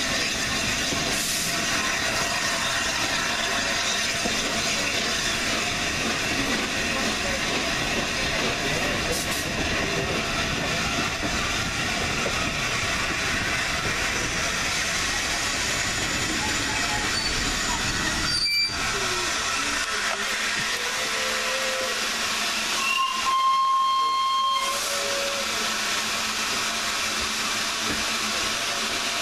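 Steam-hauled passenger train running along the track, heard from an open carriage window: a steady rush and rattle of the carriage on the rails, with a sharp knock about two-thirds of the way through. Near the end the locomotive's steam whistle sounds once, briefly, as one steady note.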